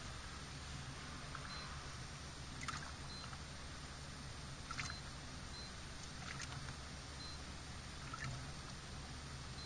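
Water lapping and trickling against the hull of a small fishing boat sitting on open water, with a few soft splashes over a faint steady low hum.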